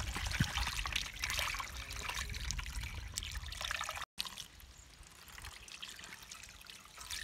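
Buttermilk marinade poured from a bowl over raw chicken pieces in a foil tray, splashing and trickling. It cuts out for an instant about four seconds in, then goes on more softly.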